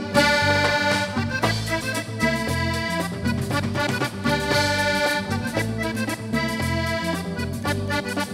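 Panamanian música típica played live: a button accordion carries an instrumental break, over a stepping electric bass line, guitar and steady percussion.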